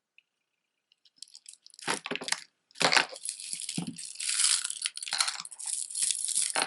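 Rustling and crinkling with light clinks as costume jewelry is handled and lifted out of its packing. It starts about a second in, after a near-silent moment.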